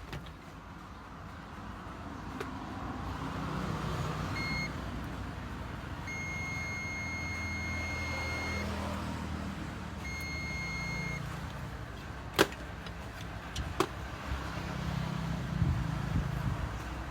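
Multimeter beeping as the probes are touched to the welding machine's parts: a short beep, then one held for about two and a half seconds, then one of about a second. Under it runs a steady low rumble of road traffic, with a sharp click about twelve seconds in.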